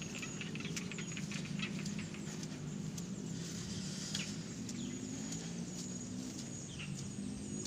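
Wet rice-field ambience: a steady high insect tone over a low steady drone, with scattered light clicks and rustles throughout.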